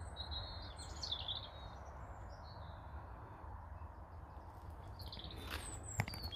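Small songbirds chirping and twittering in short high phrases, twice, over a steady low outdoor hiss, with a single sharp click near the end.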